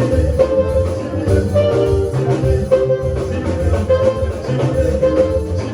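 Upbeat dance music with a steady bass beat, drums and bright pitched notes.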